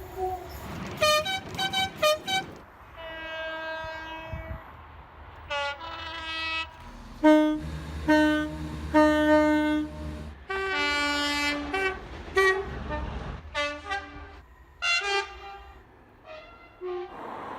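Train horns sounding a series of short blasts, many alternating between a high and a low note, from several different trains in turn, with a longer low blast partway through.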